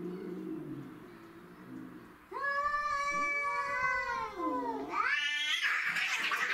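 Domestic cats in a fight standoff: a low growl fades out, then a long drawn-out yowl holds, drops in pitch and sweeps up into a screech, breaking into a hiss near the end.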